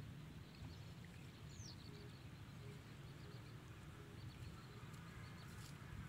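Faint open-air ambience: a steady low rumble, with a few faint high bird chirps and one short rising whistle.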